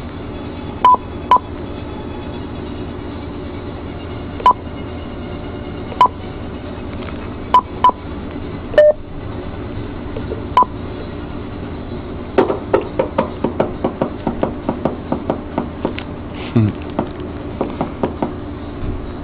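Cobra 29 LX LE CB radio key-tone beeps as its front-panel buttons are pressed: short single-pitched beeps, one or two at a time, a second or more apart. In the second half comes a quick run of clicks lasting several seconds. A steady low hum runs underneath.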